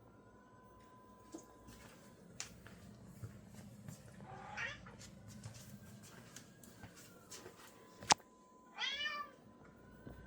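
A black domestic cat giving two tiny, squeaky meows, one about four seconds in and a louder one near the end, with a sharp click just before the second.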